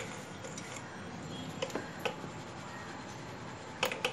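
A few light, sharp clicks and taps of a sieve and utensils against the mixing bowl as dry flour and cocoa are sifted into cake batter by hand.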